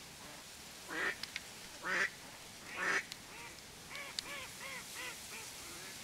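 A duck quacking: three loud, harsh quacks about a second apart, then a quicker run of about six softer quacks.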